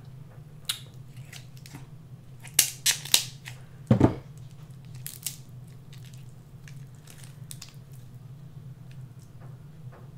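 Kitchen scissors cutting through a king crab leg shell, with three sharp crunching snips about two and a half to three seconds in and a heavier knock at about four seconds. Softer cracks follow as the shell is pulled apart by hand, over a low steady hum.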